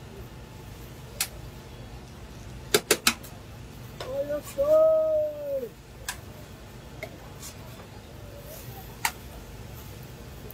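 Metal spatulas clacking on a flat-top griddle in short sharp clicks, three in quick succession about three seconds in, against a steady background hum. About four seconds in, a person's voice calls out one drawn-out sound lasting over a second that falls in pitch at its end.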